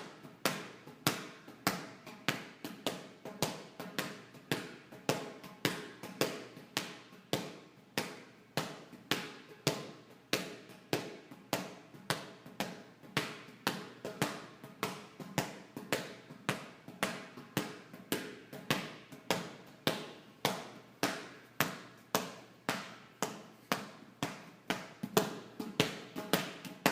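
Large inflated yoga ball bouncing on a soft weight-room floor: a steady run of hits, about two a second, each a sharp thump with a short ringing decay.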